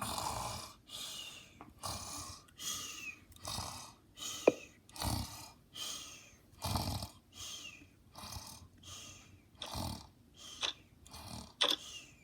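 Snoring in quick, regular breaths, a little more than one a second, with a few short high whistling squeaks mixed in, mostly near the end.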